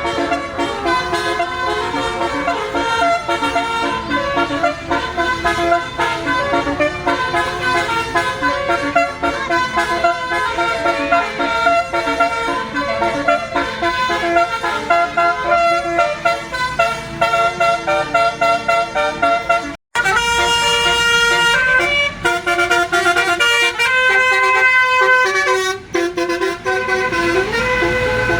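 Bus telolet horns of the Basuri type: multi-tone air horns playing quick melodic runs of notes, stepping rapidly between pitches. The sound breaks off abruptly for a moment about twenty seconds in, then more horn tunes follow.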